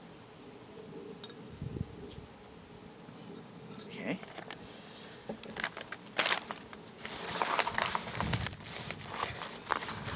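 Insects trilling steadily at a high pitch. From about five seconds in, hands handle the gear: sharp clicks and the crinkle of plastic bags and rustle of a nylon carrying case, louder than the insects.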